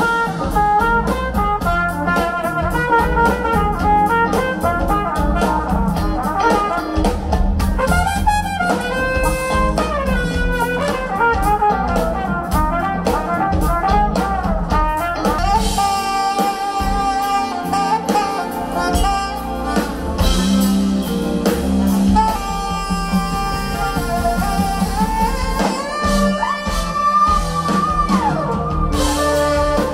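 Live smooth jazz band playing, a saxophone carrying the melody over electric guitars, keyboards, bass and drum kit.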